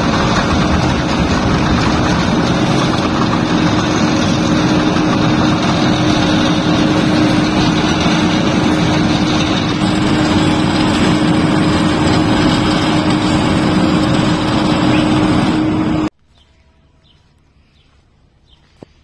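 Asphalt paver's engine running at close range: a loud, steady machine drone with a constant hum. It cuts off suddenly about sixteen seconds in, leaving only a faint outdoor background.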